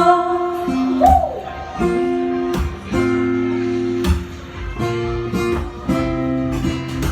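Acoustic guitar strumming sustained chords in the song's instrumental outro, the chord changing about once a second.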